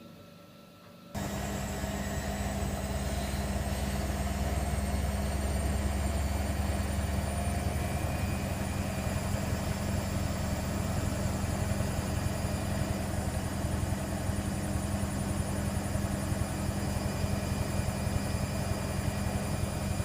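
Washer-dryer switching on suddenly about a second in and then running at a steady speed: a constant motor whir with a low hum beneath.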